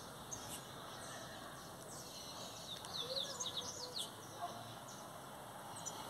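A flock of small seed-eating birds chirping as they feed on the ground: many short, high chirps that come thickest about halfway through, over a steady background hiss.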